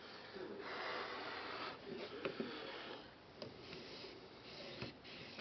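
A 600 grit aluminium oxide water stone scraping along the edge of a ZDP-189 steel knife blade on an Edge Pro sharpener. It makes a few gritty strokes, the first about a second long, with small clicks between them, while the bevel is being set and a burr raised.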